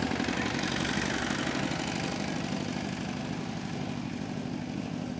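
Engine of a small open-bed utility truck chugging steadily as it drives past and away, slowly fading.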